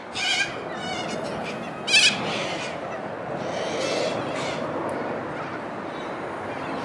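Harsh squawking calls from a flock of white cockatoos: one squawk at the start and a louder one about two seconds in, over steady outdoor background noise.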